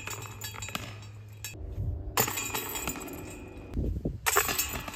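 Golf discs striking the heavy-duty steel chains of a Black Hole Pro practice disc golf basket: the chains are still jangling from a catch at the start, then two more discs hit them, about two seconds in and just past four seconds, each time a sudden clash of chains that rattles and settles.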